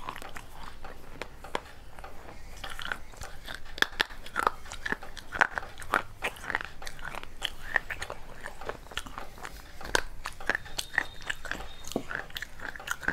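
A person biting and chewing pieces of a baked clay pot: an irregular run of sharp crunches and crackles.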